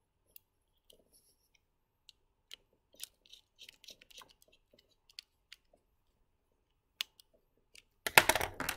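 Scattered small clicks and taps from handling a servo driver board and its jumper wires, with a screwdriver working a screw terminal, then a louder burst of knocking and rattling near the end as the board is moved.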